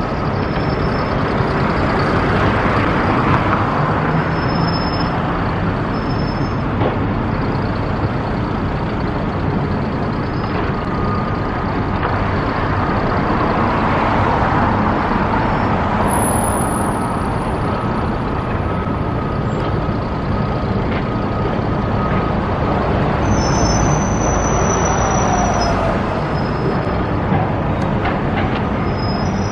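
Steady, loud road traffic noise from a busy street, with buses and trucks passing.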